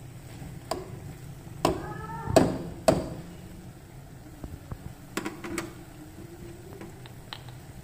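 Metal ladle knocking and scraping against a metal cooking pot while stirring a thick curry: a cluster of sharp knocks about two seconds in, then a few lighter ones later.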